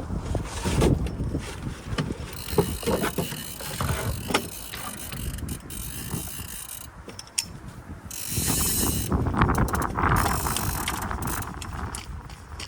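Fly reel's ratchet clicking irregularly as line is wound in or pulled off while a salmon is played.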